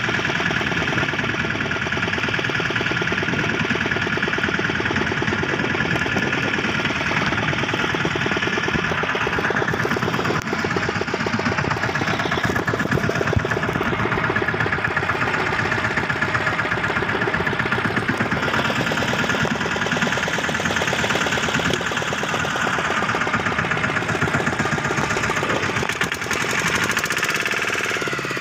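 Fishing boat's engine running steadily with a fast, even pulsing beat.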